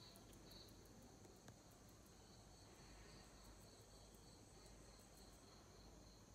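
Near silence: faint room tone with a faint, high chirping that repeats at even intervals.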